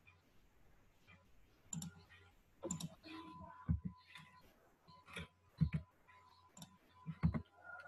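Computer mouse clicks and keyboard key taps, short and irregularly spaced, a few at a time, as a value is typed into a settings box.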